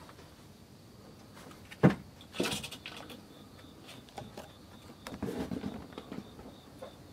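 A kitten clambering from a wooden beam onto the top of a cloth curtain: a sharp knock about two seconds in, then claws scrabbling and fabric rustling, and more rustling a little past five seconds.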